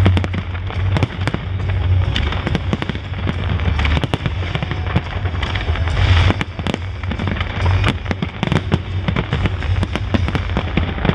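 Fireworks display: a dense, continuous crackle of many small cracks and pops from crackling-star shells, with heavier bangs among them and a strong low rumble underneath.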